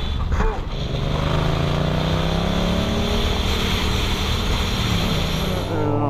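Motorcycle engine under steady acceleration, its pitch climbing slowly as the bike gains speed, with wind rushing over the helmet-mounted microphone.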